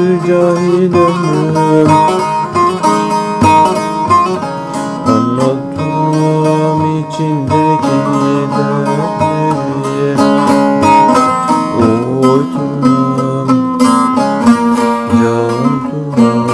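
A plucked string instrument played solo: a continuous melody with quick, dense picking and some sliding notes, without singing.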